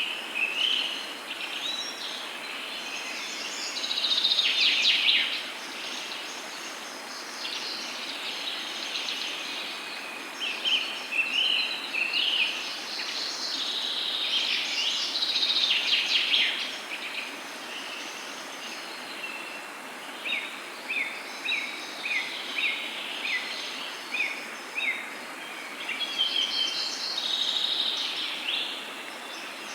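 Several wild birds singing and chirping over a steady background hiss. Near the end comes a run of short, evenly spaced notes, about one or two a second.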